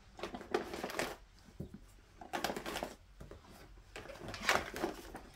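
Small items being handled and packed by hand: rustling with light knocks, in three bursts.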